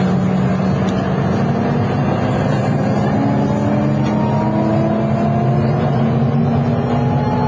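Mi-8 helicopter's twin turboshaft engines and main rotor heard from inside the cabin: a loud, steady drone with a strong low hum and several fainter whines slowly rising in pitch.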